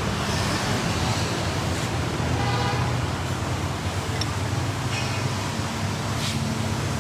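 Steady rumble of street traffic, with a faint voice in the background about two and a half seconds in.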